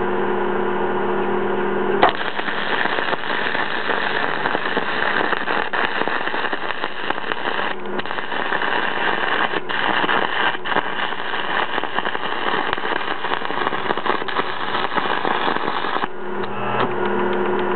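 Steady hum of an old cracker-box DC stick welder, then an aluminum welding rod's arc strikes about two seconds in and crackles steadily for about fourteen seconds on aluminum diamond plate before breaking off suddenly, leaving the hum again. The rod is welding right in with good penetration.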